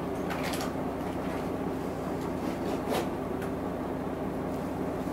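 Hino Blue Ribbon II city bus's diesel engine running steadily, heard from inside the passenger cabin, with a few sharp clicks and rattles; the loudest comes about three seconds in.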